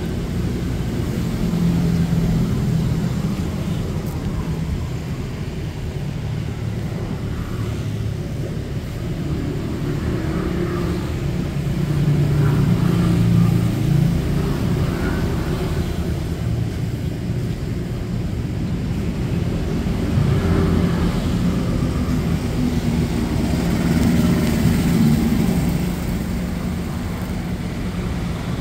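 Street traffic: motor vehicles running and passing, a steady low hum that swells louder several times as vehicles go by.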